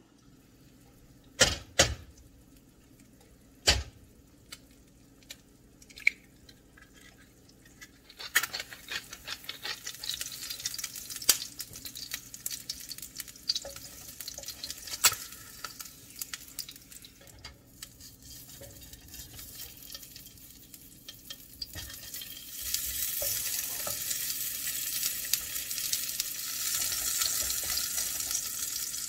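A few sharp knocks, then oil sizzling and crackling in a nonstick frying pan as eggs and then sausages fry, with a wooden spatula stirring. The sizzle starts about eight seconds in and gets louder about twenty-two seconds in.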